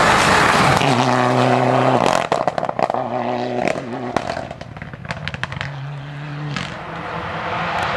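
Mitsubishi Lancer Evolution rally car's turbocharged four-cylinder engine passing close at full throttle, then pulling away. The engine note is held in short, even bursts broken by gearshifts, with a cluster of sharp pops and cracks, and it fades as the car goes into the distance.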